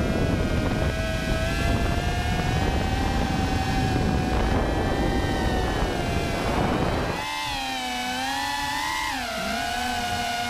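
Small remote-controlled aircraft's electric motors and propellers whining steadily, with wind rush on the onboard microphone. About seven seconds in, the wind rush falls away. A second or two later the whine dips in pitch briefly and comes back up.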